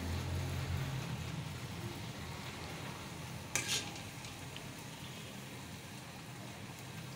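Rice-flour batter frying in hot oil in a steel karahi, a steady sizzle as the flower-shaped pitha mold is dipped in and the fritter cooks. A low hum fades out about a second in, and there is one sharp click about three and a half seconds in.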